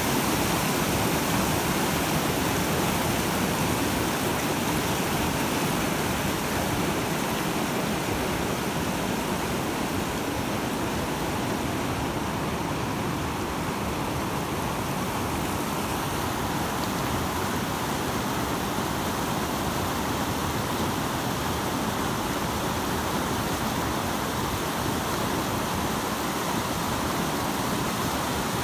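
Steady rush of glacial meltwater whitewater in the White River, a continuous noisy roar that eases a little over the first several seconds.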